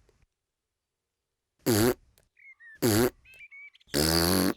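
A cartoon toddler piglet making three short, buzzy vocal blurts about a second apart; the last is the longest.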